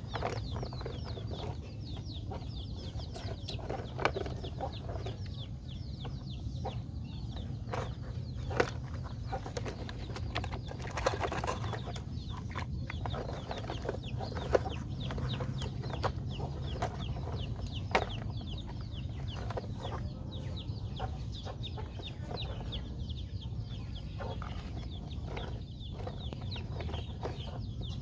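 Birds chirping constantly in short high notes that slide downward, with a few sharp knocks of plastic toy trucks being handled in the dirt, the loudest moments.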